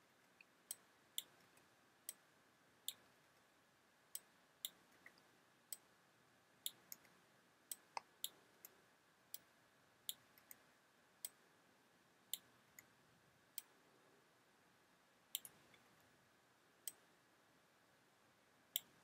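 Sharp, irregular clicks of a computer keyboard and mouse, roughly one or two a second, as keys are pressed to step through frames and the mask is adjusted, over a faint room hiss.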